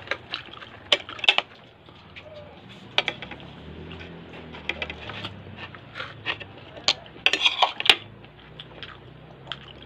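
Someone eating a meal with the hands: scattered sharp clicks and clinks from plates and bowls, with chewing. The clicks come in a quick cluster near the end.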